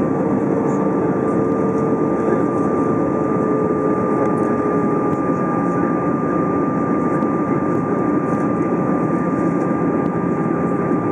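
Steady cabin noise inside an Airbus A320 in flight: the rush of airflow and engine hum, with a constant high whine, and a lower tone that fades out about halfway through.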